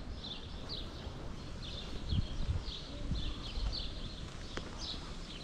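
Small birds chirping, short high chirps a few times a second, over a low outdoor rumble, with one sharp click near the end.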